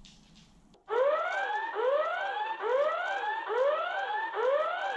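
Electronic alarm sound effect played back from an MP3 player module through a small active speaker: a siren-like whoop that rises and falls over and over, about every 0.8 s, starting about a second in. It is set off by a sonar sensor as the dog nears its bowl.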